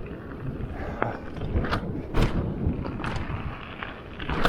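Giant Stance full-suspension mountain bike rattling down a rough dirt trail: a steady rumble of tyres over dirt and rock, broken by about five sharp knocks and clacks as the bike hits bumps.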